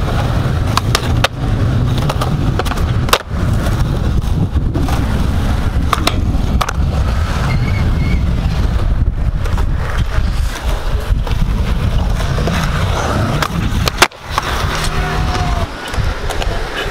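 Skateboard wheels rolling on rough pavement in a steady low rumble, broken by sharp clacks of the board snapping and landing. The loudest clack comes near the end, followed by a brief break in the sound.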